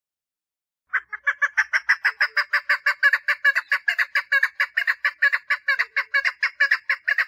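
Female chukar partridge calling for a mate: a fast, even series of clucking notes, about five a second, starting about a second in.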